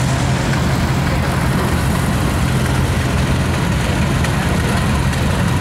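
Antique Silver King tractor engines, with other old tractors behind them, running steadily at slow parade speed. It is an unbroken, even low hum.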